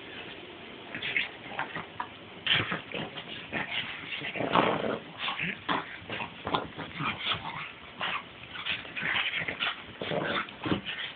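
Two pugs play-fighting, with a string of short, irregular whimpers and yips.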